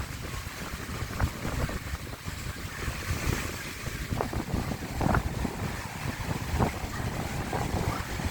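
Surf breaking on a beach in rough sea, a steady hiss with a couple of louder surges, under heavy wind buffeting on the microphone.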